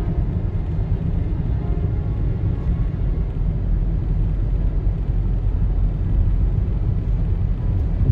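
Steady low rumble of Niagara Falls' water pouring down, an even rushing noise without breaks.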